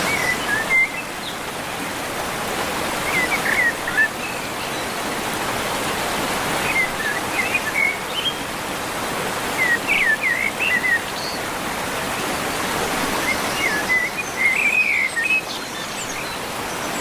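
Waterfall rushing with a steady hiss. Small birds chirp in short bursts every few seconds over it.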